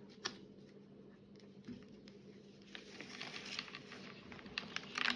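Faint rustling and soft ticks of 4 mm macramé cord being handled and pulled through a lark's head knot by hand, with a few sharper clicks about a quarter-second in and again near the end.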